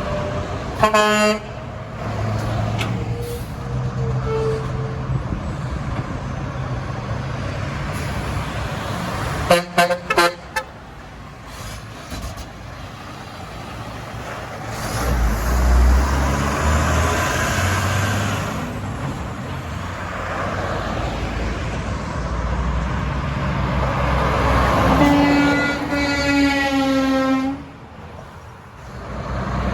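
Semi trucks passing on a highway and sounding their air horns: a short blast about a second in, a few quick toots around ten seconds in, and a longer blast of about two and a half seconds near the end. A heavy truck passes loudly in between, over steady traffic noise.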